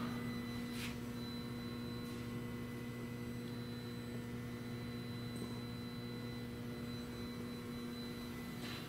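Steady low electrical mains hum, with a few faint taps.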